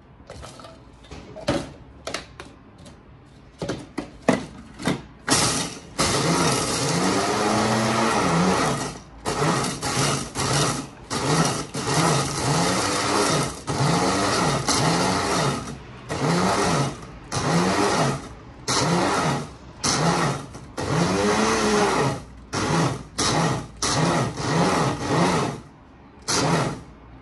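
Tefal electric mini chopper grinding toasted bread cubes into breadcrumbs, run in pulses. It starts with a few short bursts, runs steadily for about three seconds, then goes on in a string of roughly one-second pulses, the motor pitch rising and falling with each.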